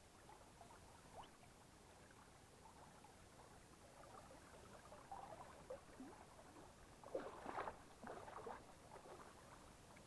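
Quiet shallow stream with faint trickling water and soft, irregular splashes, a brief cluster of them about seven seconds in.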